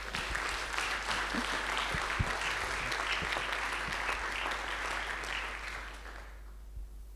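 Audience applauding, starting as the talk ends and dying away about six seconds in.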